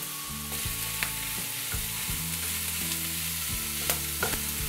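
Pork belly cubes frying in oil and their own rendering fat in a nonstick pan: a steady sizzle with a few sharp pops, the fat spattering as water cooks out of the meat.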